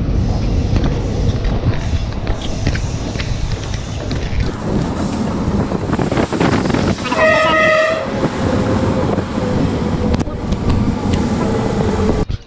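Passenger train running at speed, heard from an open coach door: a steady rumble and clatter of the wheels on the rails. A train horn sounds once, briefly, about seven seconds in. The sound cuts off abruptly near the end.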